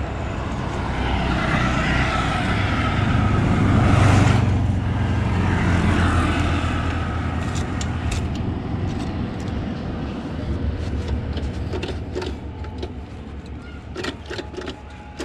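A road vehicle passing close by on the highway: a low rumble that swells to its loudest about four seconds in, then slowly fades away. A few light clicks follow near the end from handling the motorcycle.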